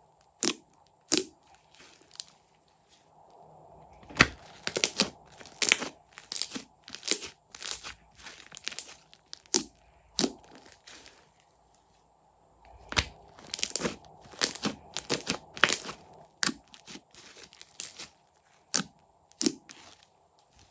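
Slime being squeezed and poked by hand: irregular sharp crackling pops and crunches in clusters, with brief pauses between them.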